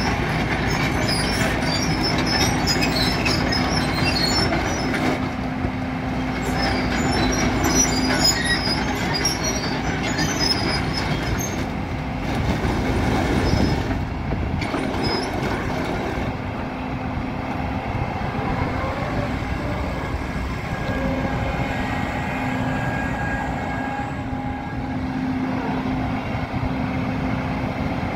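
Liebherr R924B crawler excavator running and travelling on its steel tracks: a steady diesel and hydraulic drone under high squeaks and clinks from the track chains, which are busiest in the first half.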